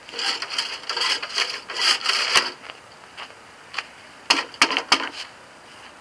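Irregular crunching and scraping, like boots on packed snow, with two sharp knocks. The lawnmower engine is not running.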